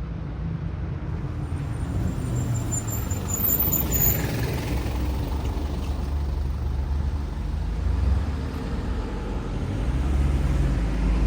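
Road traffic: motor vehicles running and passing through the intersection, a steady rumble of engines and tyres that gets louder near the end.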